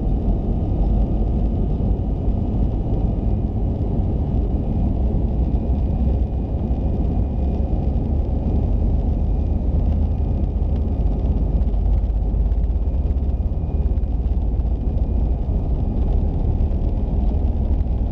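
Airbus A320 cabin noise while taxiing: a steady low rumble from the engines and rolling gear, with a faint steady high whine over it.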